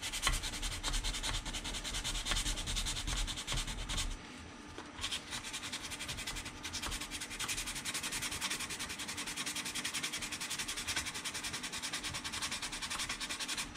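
Sandpaper (180 grit) rubbing back and forth by hand over a glued plastic model seam, knocking down glue and high spots, with a brief pause about four seconds in.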